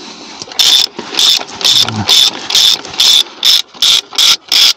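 Small hand ratchet clicking in repeated strokes while undoing a wheel bolt on a mobile crane's wheel, about two to three strokes a second, quickening toward the end.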